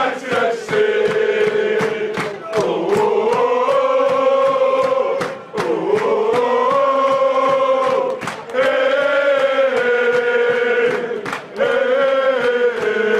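Manchester United supporters chanting together in long, drawn-out sung phrases, each held for a couple of seconds, with sharp regular beats running through.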